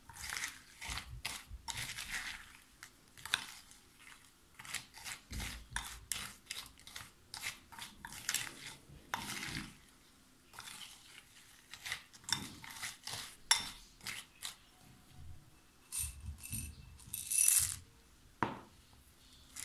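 Metal spoon stirring cocoa cereal balls coated in melted chocolate in a glass bowl, scraping and clinking against the glass in irregular strokes.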